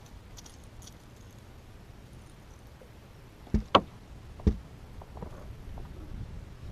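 Three sharp knocks, two in quick succession about halfway through and a third a moment later, over a low steady rumble.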